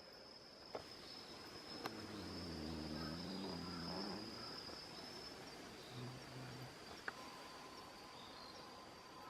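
Insects singing a steady, high, continuous trill in autumn woodland, joined by a second, lower trill near the end. A low hum dips and rises in pitch between about two and four seconds in, and there are a few sharp clicks.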